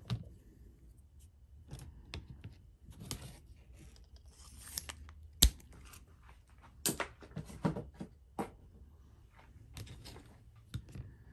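Handling noises from a small knife and its packaging: scattered rustling and light clicks, with one sharp click about five and a half seconds in.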